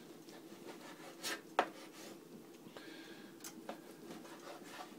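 Kitchen knife cutting raw bacon on a plastic cutting board: quiet slicing and rubbing with a few light knocks of the blade against the board.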